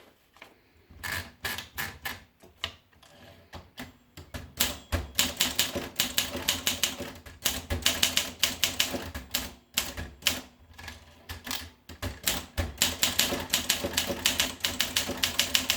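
Olympia SM2 manual portable typewriter being typed on: a string of sharp key clacks, sparse for the first few seconds, then a fast steady run with a few short pauses.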